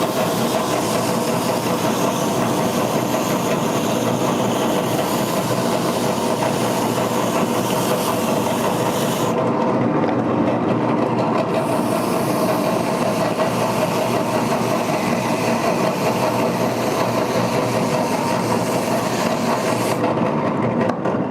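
Drum sander running steadily with a constant hum and hiss while its sanding drum is being cleaned. The high hiss drops out for about two seconds partway through and again near the end.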